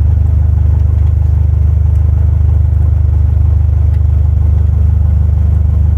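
Cessna 172 Skyhawk's piston engine and propeller running steadily at low taxi power, a loud, even low hum with a fast pulsing beat.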